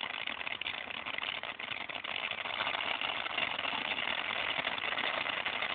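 Firework giving off a steady hiss with dense crackling, growing a little louder about two seconds in.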